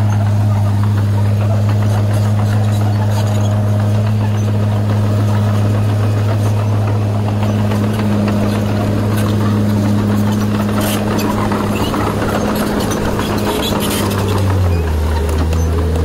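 Diesel engines of a small Komatsu bulldozer and a dump truck running at a steady speed, dropping to a lower pitch about three-quarters of the way through, with a few metallic clanks in the middle as the truck tips its load of soil.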